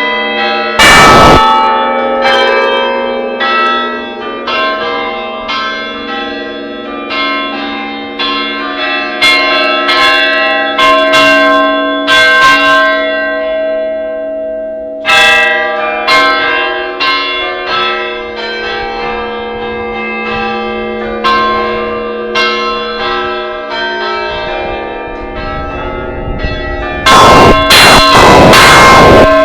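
A peal of Russian church bells: quick strikes on smaller, higher bells over the lingering ring of larger bells. Very loud strikes come about a second in and again several times near the end, loud enough to distort.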